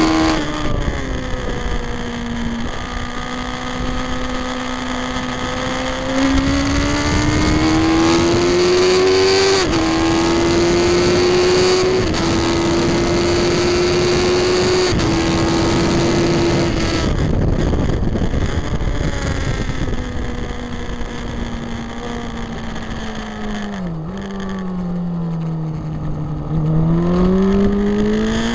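2003 Yamaha R1's inline-four engine at full throttle on track, revs climbing and stepping down at each upshift. About two thirds of the way through the throttle closes for braking, with quick drops at the downshifts, then the revs climb again near the end. Heavy wind rush runs under the engine throughout.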